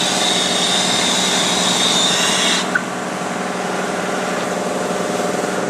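Brazing torch hissing with a thin high whistle, then shut off abruptly about two and a half seconds in, with a small click. A steady mechanical hum runs underneath.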